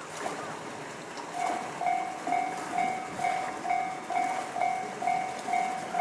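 Japanese railway level-crossing warning bell, the JR standard electronic chime, starting about a second and a half in and ringing a little over twice a second: the crossing has been triggered by an approaching train.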